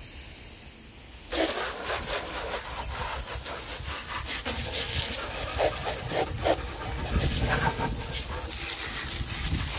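Water jet from a garden hose spray nozzle hitting the push mower's engine and deck, a steady hissing spatter. It is fainter for about the first second, then becomes louder once the stream is on the mower.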